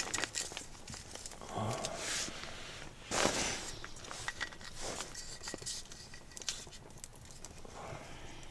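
Small kindling fire just catching in a wood-burning stove with the door open: irregular crackles and snaps from burning paper and bark tinder, mixed with rustling and crinkling as the tinder is handled, loudest about three seconds in.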